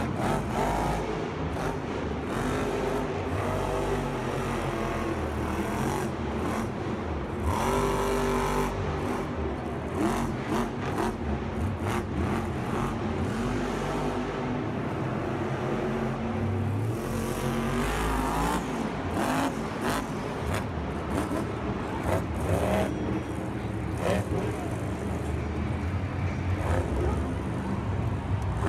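Monster truck supercharged V8 engines running and revving, with the engine pitch sweeping up and down several times as the throttle is worked.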